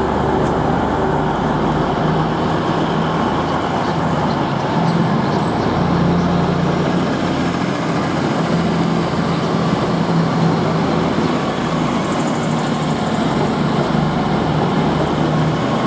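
Class 222 Meridian diesel-electric multiple unit pulling away from the platform and passing close by, its underfloor diesel engines running under power with a steady drone.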